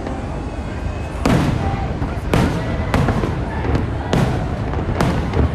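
Aerial fireworks bursting overhead: a run of sharp booms about once a second, starting about a second in, each trailing off in a low echo.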